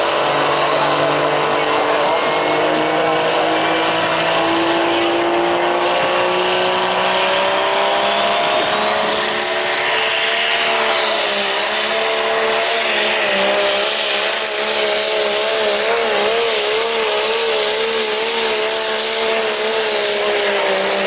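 Diesel Dodge Ram pickup engine under full load pulling a weight-transfer sled, its pitch climbing steadily for the first half. A high whistle rises about nine seconds in, then the engine note wavers up and down as the truck strains against the sled.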